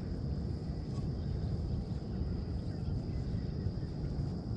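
A steady high-pitched insect drone over a low, uneven rumble.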